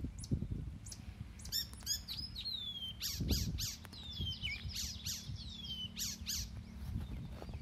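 Birds chirping and calling, with quick sharp chirps and several falling whistles repeated one after another, over a steady low rumble.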